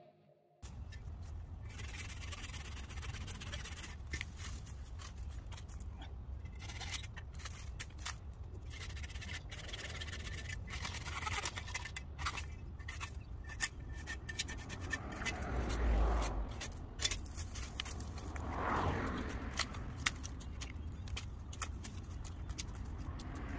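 Evergreen branches being cut and handled by hand: irregular clicks and snaps over a low, steady rumble.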